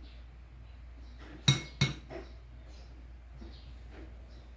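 Two sharp clinks in quick succession, about a second and a half in: a ceramic bowl knocking against the blender's jar as eggs are poured in.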